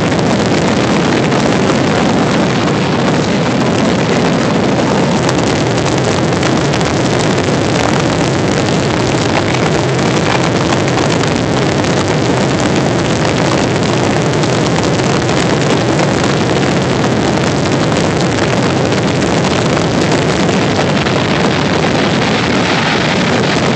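Fireworks grand-finale barrage: bursts and crackle so dense that they run together into one loud, steady noise with no gaps.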